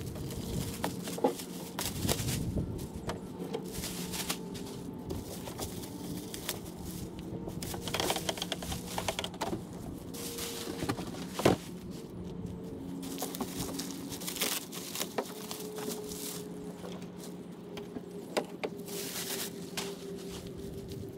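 Plastic wrap crinkling and rustling in bursts as it is pulled off the sections of a modular paddle board, with one sharp knock about halfway through, over a steady low hum.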